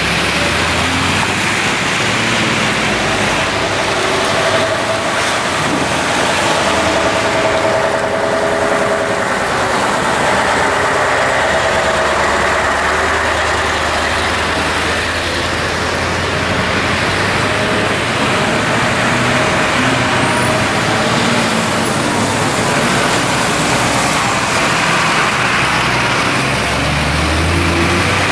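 A large vehicle driving, its engine running under a steady roar of road noise.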